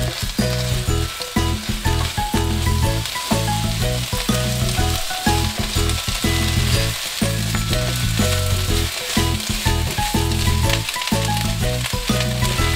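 Napa cabbage leaves and shrimp sizzling as they are stir-fried in sesame oil in a frying pan, a steady hiss with stirring. Background music plays along.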